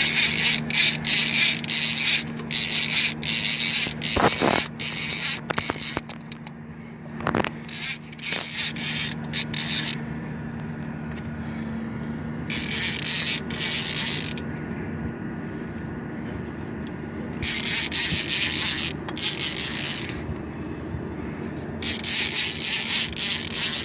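Large-game fishing reel buzzing in repeated bursts of one to five seconds, with short gaps between them, as a sturgeon is played on a bent rod. A steady low hum runs underneath.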